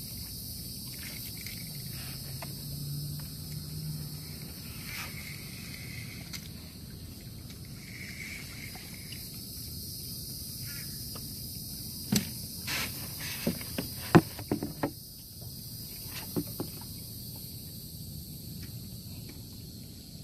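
Steady high-pitched chorus of insects droning, with a brief low hum a few seconds in and a cluster of sharp clicks and knocks about twelve to fifteen seconds in.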